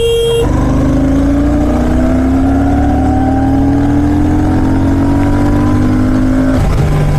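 A vehicle horn sounds briefly at the start. Then the Royal Enfield Shotgun 650's parallel-twin engine pulls up through the revs under acceleration, its note rising steadily for about six seconds, and drops to a lower note near the end.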